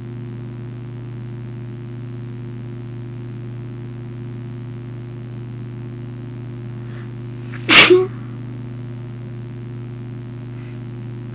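A woman sneezes once into a tissue, a loud, wet sneeze that comes about three-quarters of the way in after a short, faint intake of breath. A steady low electrical hum sits underneath.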